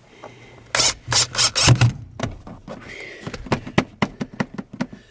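Cordless impact driver driving a screw into the truck's interior trim panel: the motor runs in several short bursts with a low hum, then a string of sharp clicks follows as the screw is driven home.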